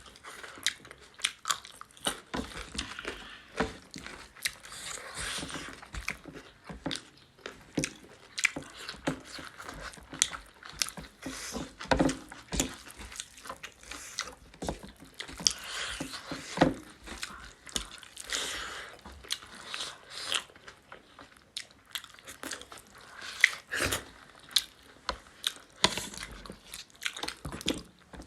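Close-up chewing and biting of pork, mustard greens and rice, with many irregular wet mouth clicks and crunches throughout.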